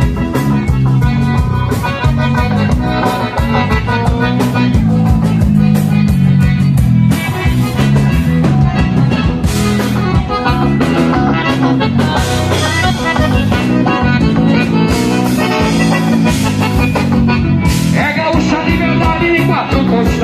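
Live band playing an instrumental break of an upbeat dance song, with a steady driving beat and bass and no singing.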